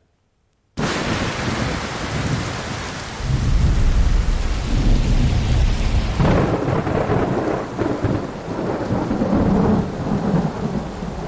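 Heavy rain pouring in a cyclone storm, with deep rolling thunder from about three seconds in. It starts abruptly after a moment of silence.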